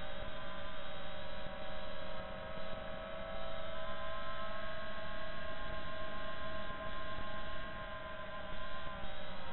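FPV quadcopter's brushless motors and propellers whining at a steady pitch in flight, a stack of overtones above one main tone; the pitch sinks slightly near the end.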